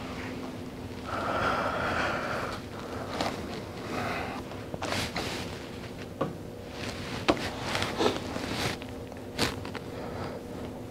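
Quiet room with a faint steady hum, a man's breaths and sniffs, and a few soft rustles and short clicks from handling at a lectern in the second half.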